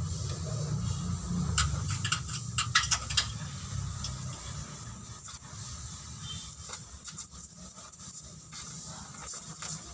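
Workshop work on a car body: a quick cluster of sharp clicks and knocks about two seconds in, with scattered single taps after it. A low steady hum is heard for the first second or two.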